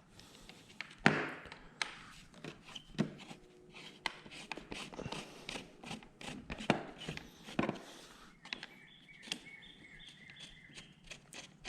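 Irregular clicks and knocks of hand tools and metal handguard mounting hardware being worked at a motorcycle handlebar, the loudest knock about a second in.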